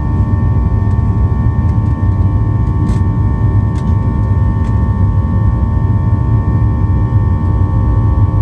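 Boeing 737-800 cabin noise: its CFM56 jet engines give a steady low rumble with a steady whine over it, heard from inside the cabin. A few faint clicks come about three and four seconds in.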